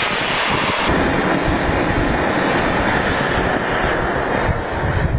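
Anar (flower-pot fountain firecracker) burning on the ground and spraying sparks with a loud, steady hiss. It turns duller about a second in.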